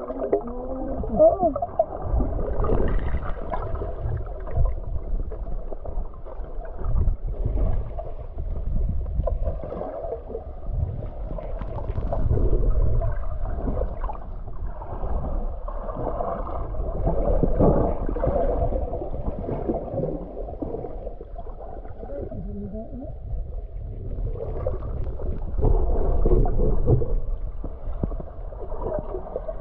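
Muffled underwater sound heard through a submerged camera: water gurgling and sloshing that swells and fades every few seconds, dull, with no high sounds.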